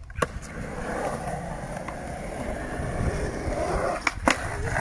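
Skateboard wheels rolling over concrete, a steady rumble. Near the end come two sharp clacks of the board striking a brick ledge.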